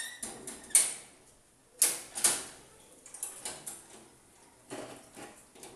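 Sharp metallic clanks and rattles from a steel gate and a scooter being handled. The loudest strike comes about two seconds in, with another about a second in and lighter clicks and knocks later on.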